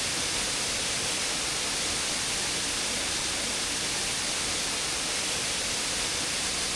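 Steady rush of falling water from a waterfall: an even hiss that stays at one level.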